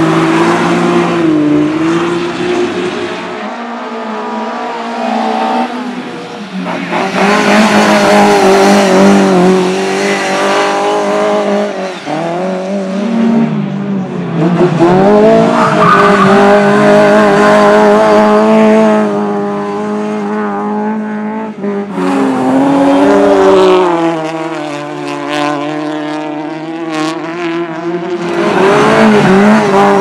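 Race car engines revving hard and backing off, again and again, as vehicles slide one after another through a bend on a dirt track: a Can-Am side-by-side buggy, then Lada saloon race cars. The engine note climbs and falls with the throttle, with tyre noise from the sliding.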